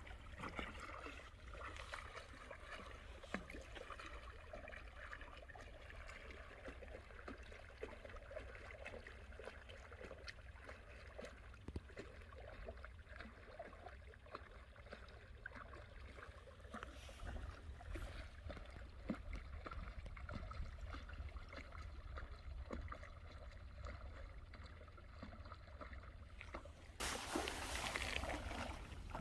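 Seawater lapping and trickling against a breakwater, over a steady low rumble, with scattered small clicks. Near the end a louder rush of noise comes in for a couple of seconds.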